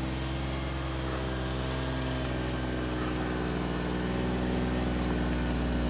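John Deere Gator utility vehicle's engine running at a steady low speed as it drives slowly along a dirt trail, growing slightly louder near the end as it approaches.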